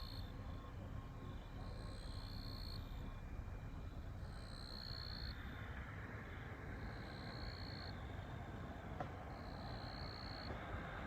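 A calling animal at night: a short high buzzing call, repeating about every two seconds, over a steady low outdoor hiss and rumble.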